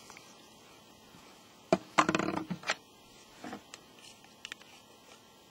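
Small plastic containers being handled while Tannerite base powder is poured: a sharp click a little before two seconds in, a short rustling scrape right after, then a few light knocks and small clicks.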